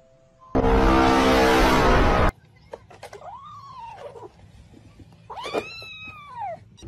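A loud, rough sound lasts about two seconds and cuts off sharply. It is followed by a ginger kitten meowing twice, each call rising and then falling in pitch, while it eats from its food bowl.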